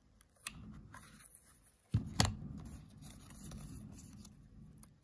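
Faint handling of a hinged coin presentation box and its paper certificate card: sharp clicks about two seconds in, then soft rustling of the card.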